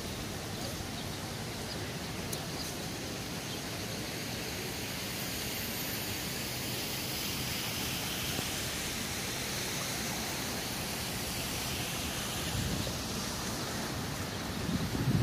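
Steady outdoor noise, an even hiss with no distinct events, with a few low rumbles near the end.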